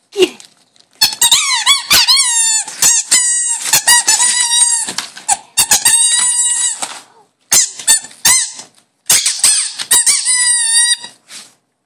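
A dog's rubber squeaky toy squeaking over and over as the dog chomps on it: quick runs of short squeaks, with several longer squeaks held for a second or more.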